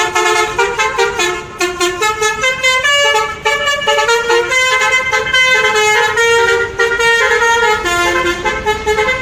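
A bus's telolet basuri musical air horn playing a fast tune, several pitched tones sounding together and stepping quickly from note to note.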